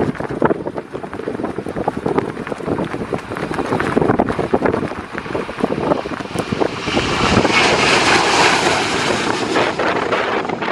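Strong wind buffeting the microphone in gusts, while an airliner's jet engines at takeoff thrust swell into a broad roar about two-thirds of the way through, then ease off near the end.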